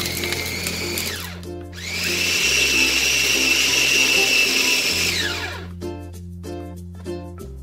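Mitochiba electric chopper grinding beef with ice. Its motor whine winds down about a second in, starts again with a rising whine, runs steadily for about three seconds, then winds down again.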